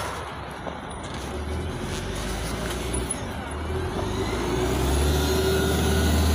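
LiAZ 5292.67 city bus with its YaMZ-53624 engine accelerating as it drives away. The engine gets louder from about a second in and is loudest near the end, with a steady whine over the low drone.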